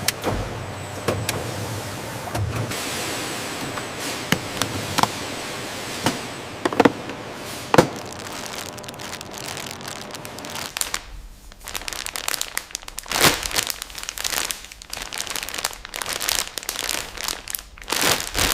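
Bread packaging line: irregular sharp clicks and knocks of the machinery with crinkling plastic wrap. About eleven seconds in, the crackling grows dense and uneven.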